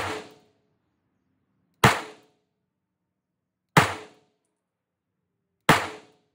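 Staccato CS 9mm pistol fired four times in slow, deliberate fire, about two seconds apart. Each shot is a sudden loud report with a short echoing tail.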